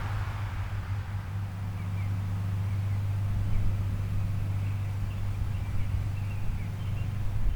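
A steady low hum with small birds chirping briefly and repeatedly over it. A fainter higher sound fades out in the first second.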